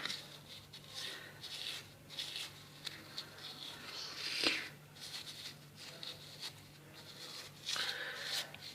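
Irregular scrubbing and rubbing strokes on a dirty motorcycle engine being cleaned, with a sharp click at the start and another about halfway through.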